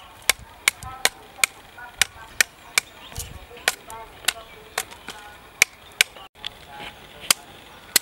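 A knife blade chopping into a hand-held woody root or stalk: a steady run of sharp chops, about two a second.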